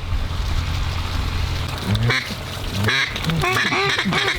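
Duck quacks: a single quack about two seconds in, another about three seconds in, then a quick run of quacks near the end, over a steady low rumble that dies away after about two seconds.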